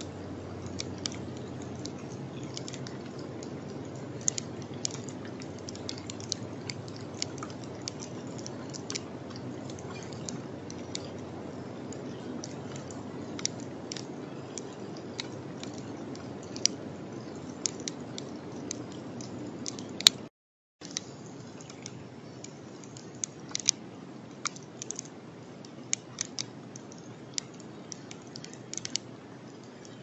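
Steady low hiss of an outdoor night camera's microphone, with irregular sharp ticks and clicks, a few a second. The sound cuts out completely for a moment about twenty seconds in.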